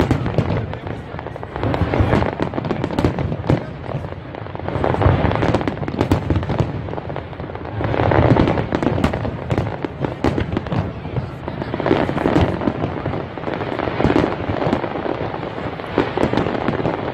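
Aerial fireworks display: shells bursting one after another with dense crackling, the loudness swelling and easing in waves every few seconds.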